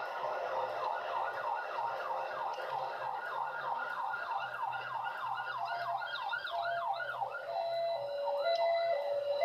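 Emergency vehicle siren on a fast yelp, rising and falling about three times a second, slowing to a longer wail about two-thirds in and giving way to a stepped two-note tone near the end.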